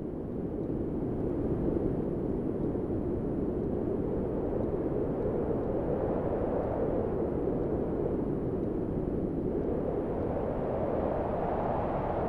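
Strong wind blowing: a steady, low rushing that swells in gusts, about halfway through and again near the end.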